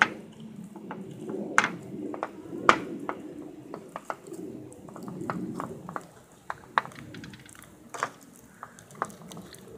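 Slime-making handling noise: irregular sharp clicks and taps of hard objects against a glass tabletop and a bowl, about a dozen, the loudest nearly three seconds in, over a low, uneven murmur.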